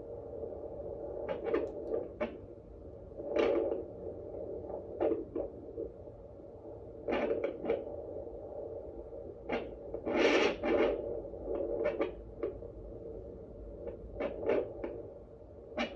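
Pocket fetal Doppler's speaker at full volume giving a steady hum broken by irregular scratchy swishes as the probe is slid over the gel. There is no regular beat yet: the probe is still searching for the fetal heartbeat.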